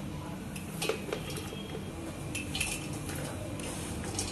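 A few light clinks and scrapes of a metal spoon against the pressure cooker pot as cooked rice is spooned in for layering a biryani.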